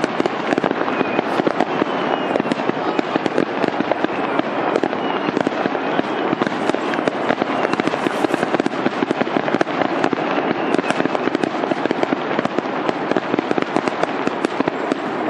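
Fireworks going off in a dense, unbroken barrage of rapid crackling pops.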